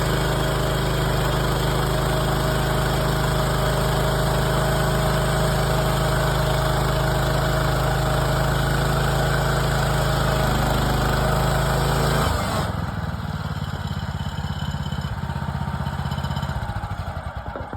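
Small gas engine of a portable bandsaw sawmill running steadily at full throttle with the band blade turning. About twelve seconds in it drops to a lower, slower-pulsing idle, which dies away near the end.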